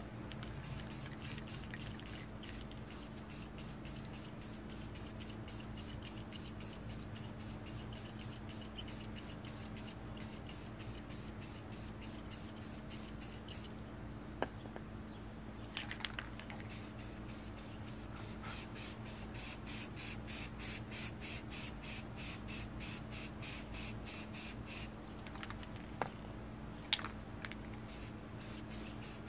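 Insects chirping in a fast, even pulse over a steady high whine, with a few sharp clicks around the middle and near the end.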